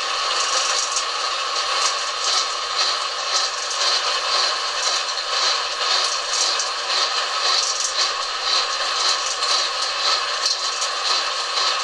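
Harrison centre lathe running and turning a shaft: a steady machine whine with a scratchy cutting noise and frequent small irregular ticks.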